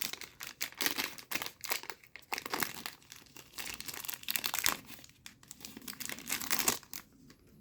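A trading-card booster pack's wrapper crinkling and tearing as it is opened, in irregular crackles that stop about seven seconds in.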